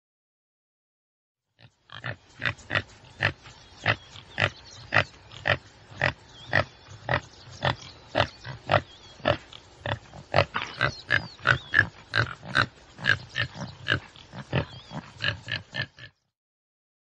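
Tsessebe (topi antelope) calling: a rapid, even series of short calls at about two a second, starting about two seconds in and stopping shortly before the end.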